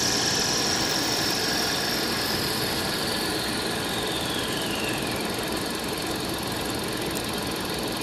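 Toolroom lathe running steadily as a parting tool, lubricated with cutting fluid, cuts through the spinning metal stock to part it off. A faint high whine slides down in pitch around the middle and fades.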